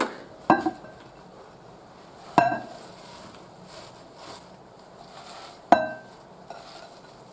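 Glass bowls clinking together three times, each a sharp clink with a short ring, over a faint rustle of chopped spinach leaves being tipped and pressed into the bowl.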